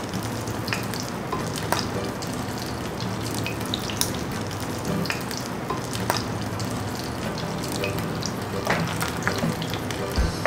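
Spring rolls frying in hot oil in a stainless steel pan: a steady sizzle with scattered pops and crackles.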